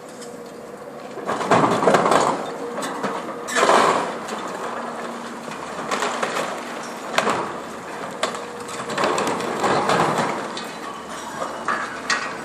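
Demolition excavator working concrete: several bouts of crunching and breaking with sharp cracks and rubble falling, over the steady background of the machine.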